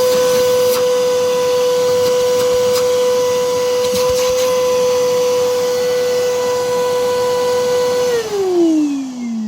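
Nilfisk Buddy II 18 T wet/dry vacuum cleaner's 1250 W motor running with a steady high whine, then switched off about eight seconds in, its pitch falling as it spins down. The owner calls this machine noisy and says its bearings are worn out.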